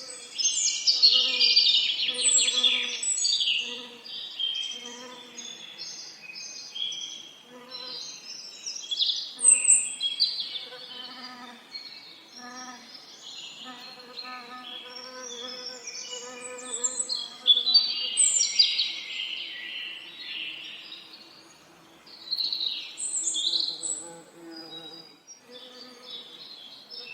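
Several songbirds singing fast, warbling, chirping phrases, loudest about a second in and again around two-thirds of the way through. Underneath, bees buzz in short, repeated passes.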